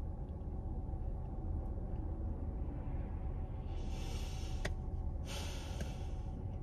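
Steady low hum of a car cabin, with two long exhaled breaths of about a second each, after the halfway mark.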